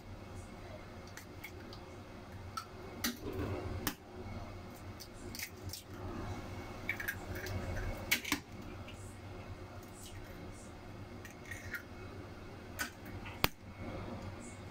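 Eggs being cracked open by hand over a plastic tub, one after another: sharp clicks of breaking shell at irregular intervals, a second or several apart, over a low background.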